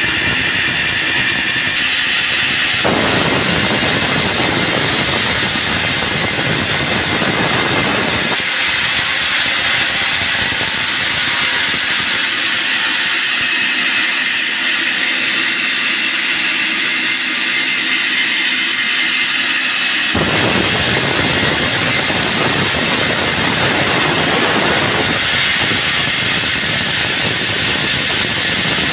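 Band sawmill running continuously, its sound changing character a few times as the cut goes on, with stretches where a deeper, fuller noise joins in.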